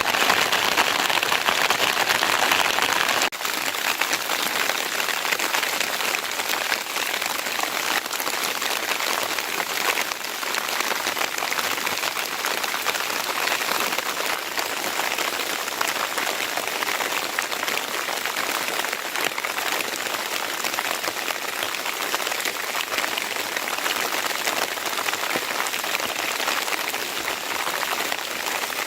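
Steady rain falling, a dense even patter; it drops to a slightly quieter level about three seconds in.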